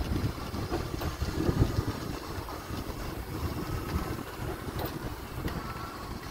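Wind rumbling on the microphone, with a power wheelchair rolling steadily along a concrete sidewalk. The gusts are loudest about a second and a half in.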